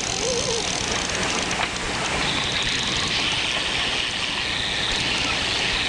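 Steady noise of a boat's motor running, with water and wind on the microphone; a higher hiss grows stronger about two seconds in.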